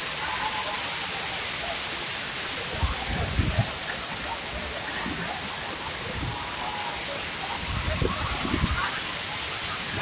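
Steady rushing hiss of a waterfall, water pouring down a rock face, with crowd voices faint beneath it. Brief low rumbles come about three and eight seconds in.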